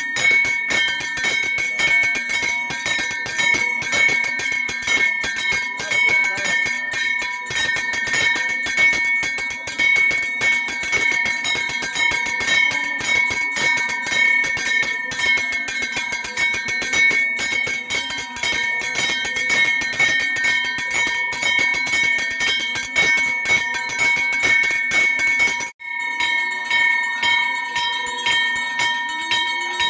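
Brass temple hand bell (puja bell) rung rapidly and without pause, its clear ringing tones held steady over a fast run of strikes; the ringing breaks off for an instant near the end and goes straight on.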